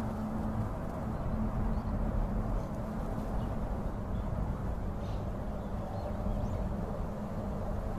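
Steady low outdoor rumble with a faint hum, and a few faint, short high bird calls scattered through it.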